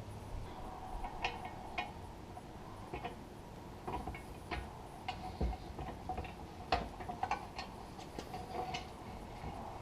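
Irregular light clicks and taps, a dozen or so scattered unevenly, from hand work on tractor-seat parts being fitted together.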